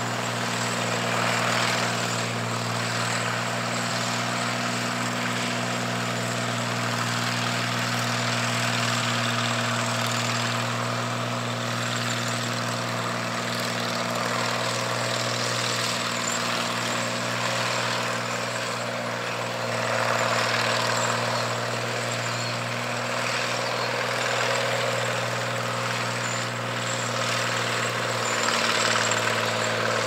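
1959 John Deere 95 combine running steadily while harvesting wheat: a constant engine hum under a dense rushing noise from the threshing works and blowing chaff, swelling louder a few times.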